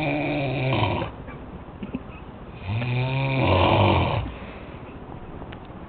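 A sleeping man snoring loudly: one snore fades out about a second in, and a full rasping snore of about a second and a half comes near the middle, its pitch dropping toward the end.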